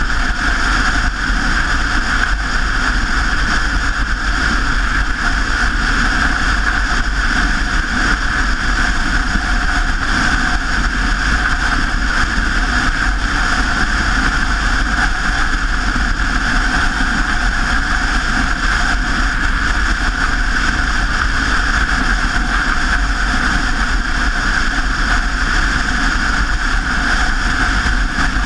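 Steady rushing noise of riding along on a bicycle: wind on the microphone mixed with tyre and road noise, with no distinct events.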